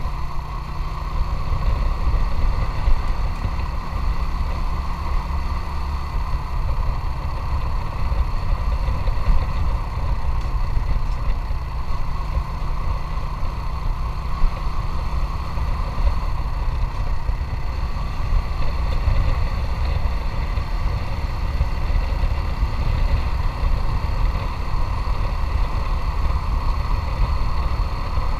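Motorcycle engine running steadily while riding, with a constant low rumble.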